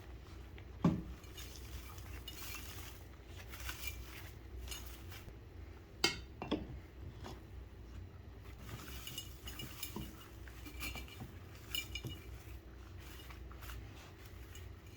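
Small hard objects clinking and knocking together as they are handled, with a few sharper knocks scattered through.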